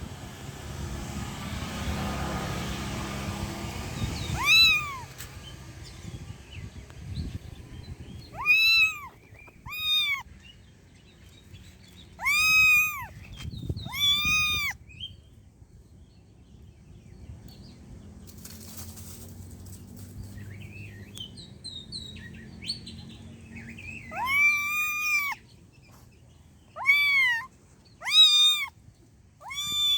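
A cat meowing repeatedly: short, high-pitched meows that rise and fall, coming in bunches with a long quiet stretch in the middle.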